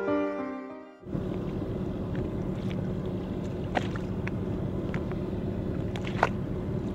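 Violin music fades out in the first second. Then a boat's engine runs steadily with a low rumble, heard from near the water, with a few sharp clicks over it.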